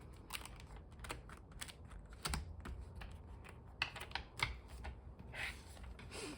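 Paper planner pages being handled and pressed onto the plastic discs of a disc-bound Happy Planner: irregular small clicks and snaps with short paper rustles.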